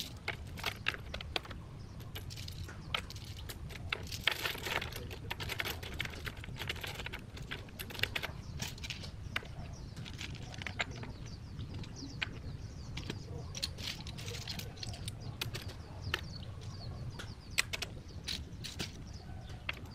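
Seashells, mostly clam shells, clicking and clattering against each other and the wood as they are set by hand into a hollow in a wooden board: irregular light taps, several a second at times.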